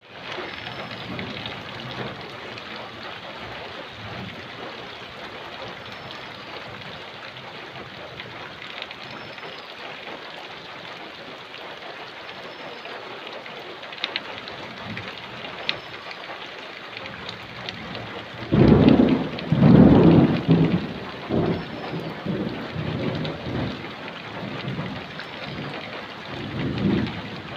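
Heavy thunderstorm: rain falls steadily throughout. About two-thirds of the way in a loud clap of thunder breaks and rolls on in rumbles that die away near the end.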